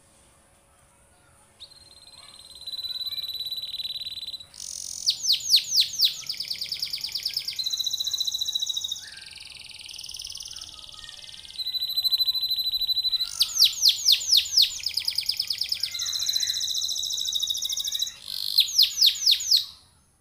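Domestic canary singing one long song. It opens with a held whistled note, then alternates fast rolling trills of rapidly repeated sweeping notes with steady held tones. It starts about a second and a half in and stops just before the end.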